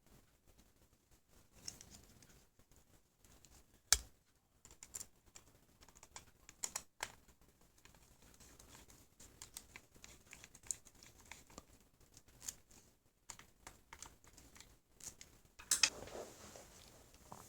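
Irregular light clicks and taps from hand work on a laptop's parts, with a sharper click about four seconds in and a louder cluster near the end.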